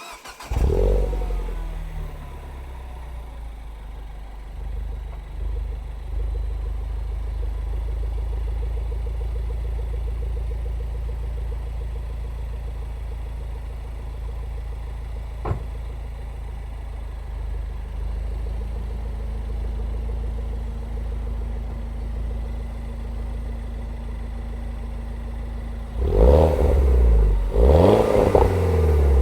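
A 2007 Mini Cooper S (R56) 1.6-litre turbocharged four-cylinder on its stock exhaust starting up warm: it flares briefly on catching, then settles into a steady idle with a single sharp click about halfway through. Near the end it is revved in several quick blips, each rising and falling.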